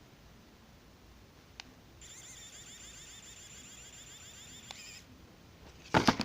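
3D pen's filament feed motor running for about three seconds from about two seconds in, a thin high whine. A small click comes before it, and louder knocks of the pen being handled come near the end.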